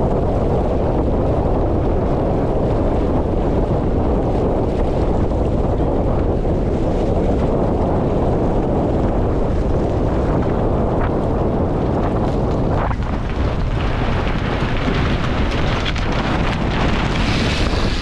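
Steady wind rumble buffeting the camera microphone, with water rushing along the hull of a small sailboat moving fast in strong wind. About two-thirds of the way through the sound turns hissier.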